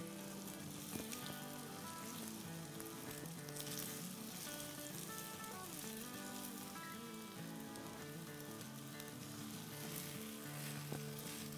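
Beaten eggs sizzling steadily in a hot non-stick frying pan over minced meat and crispy diced potatoes, with a spatula pushing the mixture about near the end. Soft background music underneath.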